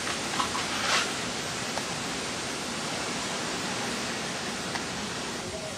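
Steady rushing noise of tropical-storm wind and rain, with two brief louder surges in the first second.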